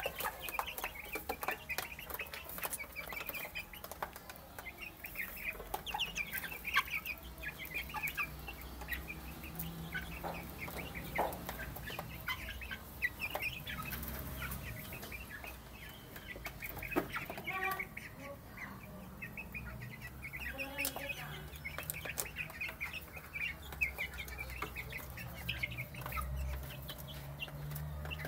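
Young chickens (chicks) peeping as they feed: many short high peeps overlapping in no steady rhythm, with scattered light clicks and a low steady hum underneath.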